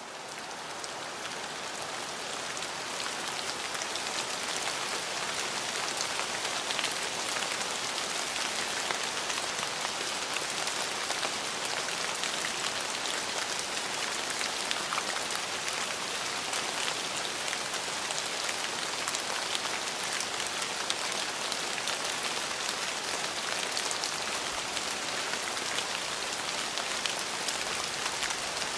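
Steady rain falling, an even hiss with scattered sharper drop ticks; it swells in over the first few seconds and then holds level.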